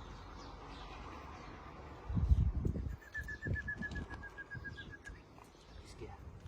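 A bird's trill: a quick run of about a dozen even notes, falling slightly in pitch, lasting about two seconds. Just before it come a few loud low thumps.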